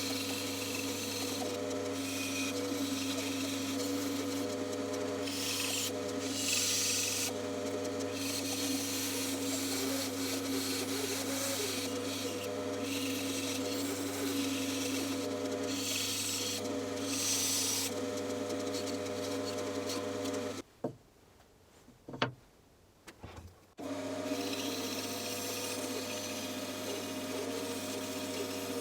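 Bandsaw running with a steady motor hum while its blade cuts through wood, the cutting hiss rising and falling in stretches. About three quarters of the way through, the sound drops out for some three seconds, with a few clicks, then the saw runs and cuts again.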